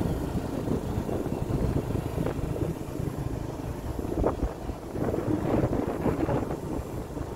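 Wind buffeting the microphone over the steady low rumble of a moving vehicle, with a few stronger gusts in the second half.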